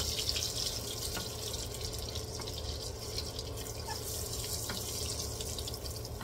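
Butter frying in a hot wok: a steady sizzle with scattered small pops as it bubbles and foams, stirred with a spatula.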